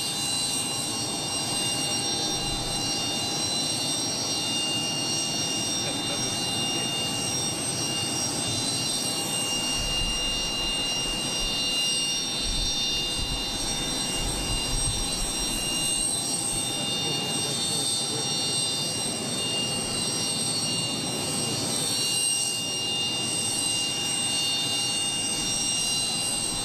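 Parked jet airliner running: a steady high whine of several held tones over an even rushing noise.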